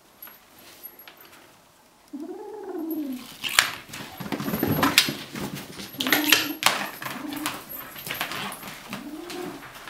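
American Curl kitten making low, owl-like hooting growls while it holds a toy: three rising-and-falling calls, one about two seconds in, one around six seconds and one near the end. This is a warning aimed at the kitten that is trying to take the toy. Knocks and scuffling sound between the calls.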